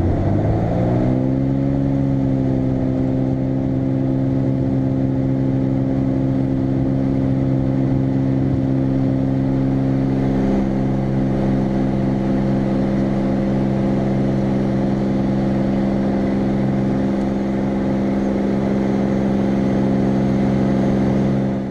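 Light aircraft's piston engine and propeller, heard from outside on the wing. It rises in pitch over the first second or so as the throttle is opened for takeoff. It then holds a steady full-power drone through the takeoff roll and lift-off, and fades out at the very end.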